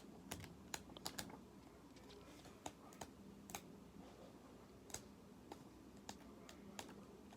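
Faint, irregular light clicks and ticks of paper pages being leafed through in a thin printed booklet, over a quiet room.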